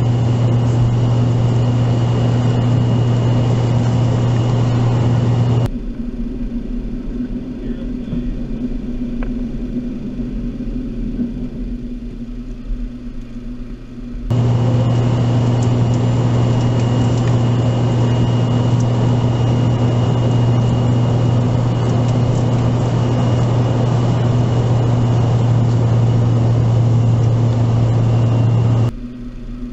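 Steady jet drone and airflow inside a Cessna Citation X's cabin in the climb after takeoff, with a strong low hum and a thin high whine from its rear-mounted Rolls-Royce AE3007 turbofans. About six seconds in it changes to a quieter, lower rumble on the flight deck. After about nine seconds the louder cabin drone returns, and near the very end it drops again.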